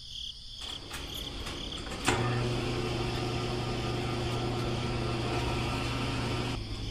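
Small electric motor of a miniature home-made concrete mixer starting with a click about two seconds in, then running with a steady low hum until it stops near the end.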